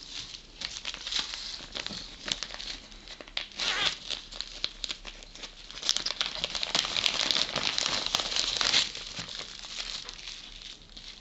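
Plastic packaging crinkling as hands handle a zip-lock freezer bag and cling-film-wrapped tobacco, getting louder and denser from about six to nine seconds in.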